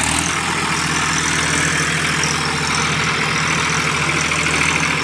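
Tractor engine running steadily with an even, unchanging beat.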